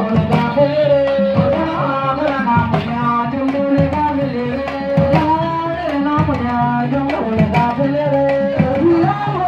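Music of hand drums struck in a quick, busy rhythm, with a voice singing a held, wavering melody over them.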